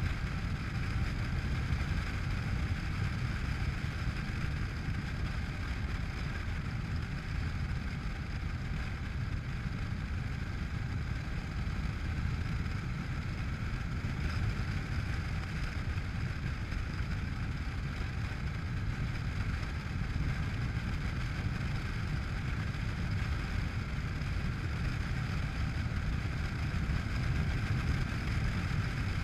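Honda NC700X motorcycle's parallel-twin engine running steadily under way, mixed with steady wind rush on the microphone.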